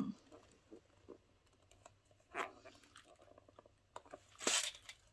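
Intermittent clicks and rustles of a plastic compartment box being handled as someone tries to prise its stuck lid open, with a louder scrape about four and a half seconds in.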